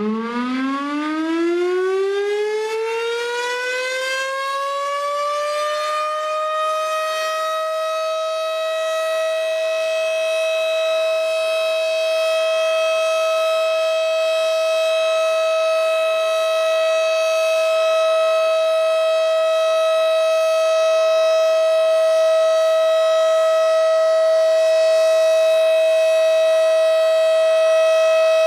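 Federal Signal STH-10A outdoor warning siren sounding the steady Alert signal: it winds up from a low pitch, rising over about six seconds, then holds one steady, loud tone.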